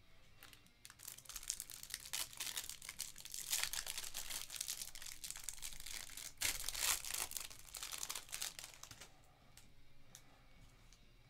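Plastic wrapper on a pack of trading cards crinkling and tearing as it is peeled off by hand, a dense run of crackling that breaks off briefly about six seconds in. It fades to faint rustling near the end.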